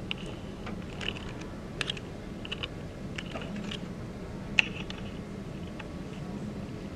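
Irregular light clicks and taps, about a dozen of them with the sharpest about two-thirds of the way in, over a steady low hum.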